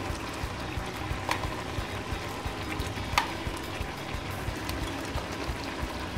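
Noodles in dark soy sauce bubbling and crackling steadily as they simmer in a nonstick pan. Two sharp clicks come about a second in and about three seconds in, as prawns and fish cake pieces go into the pan.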